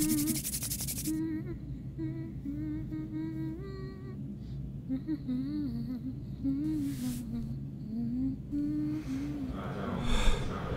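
A person humming a slow, wandering tune with no words. A brief dense rattle of rapid clicks opens it, and a noisy rush rises near the end.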